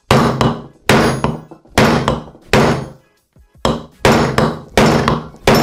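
Hammer blows driving an old crankshaft bearing out of a Vittorazi Moster paramotor engine's crankcase half through a plastic tube used as a drift: about eight strikes a little under a second apart, each with a short ring. The bearing holds fast in its seat, which the mechanic puts down to humidity and oxidation.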